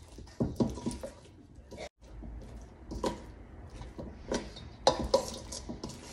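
A metal spoon clinking and scraping against a mixing bowl in irregular knocks as flour-coated cauliflower florets are tossed and mixed.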